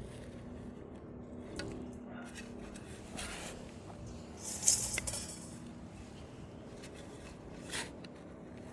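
A digging tool working garden soil: a few scrapes and knocks of the blade in the dirt, the loudest a rough scrape about halfway through.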